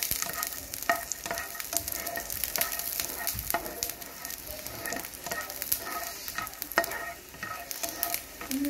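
Peanuts and garlic cloves sizzling as they roast in a little oil in a nonstick frying pan, stirred with a slotted spatula that scrapes the pan, with many short clicks as the nuts knock about.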